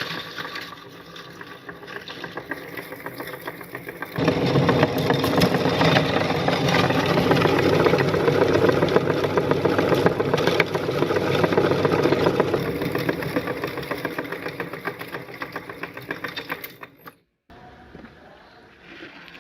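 Electric meat grinder running and grinding orange hard candy, with a dense rattling grind. It gets markedly louder about four seconds in and cuts off suddenly near the end.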